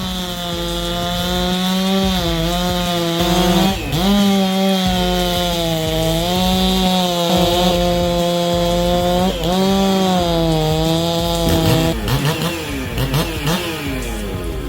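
Two-stroke chainsaw at full throttle cutting through a large oak trunk, its engine note steady, sagging briefly under load about four seconds in and again around nine seconds. Near the end the revs rise and fall quickly several times.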